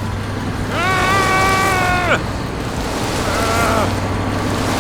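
Cartoon sound effects: a steady rumbling, engine-like noise with a low hum, over which a character lets out a long held strained cry about a second in and a shorter, weaker one near the middle.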